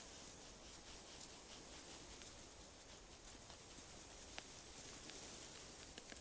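Near silence: faint outdoor hiss on a frozen river, with a few small sharp clicks, the clearest about four seconds in and two more near the end.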